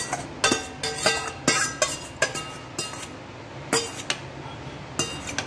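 Stainless steel kitchen utensils and vessels clinking together: about eight or nine sharp, irregularly spaced clinks, each with a brief metallic ring, as mango pulp is handled in steel pots and a mixer jar.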